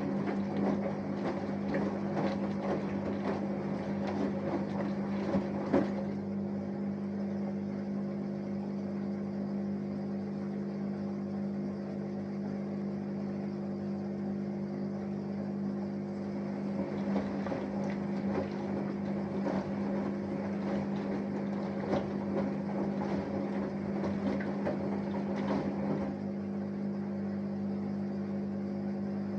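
Samsung Eco Bubble washing machine with inverter motor running a wash cycle: a steady hum under the rough churning of the drum turning the wash. The churning drops away about six seconds in and returns at around seventeen seconds, leaving only the hum in between and again near the end.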